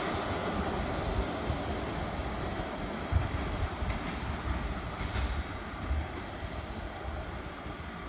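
Two coupled CPH rail motors running away along the track, their engine and wheel noise fading steadily as they recede. There are a few low thumps about three and six seconds in.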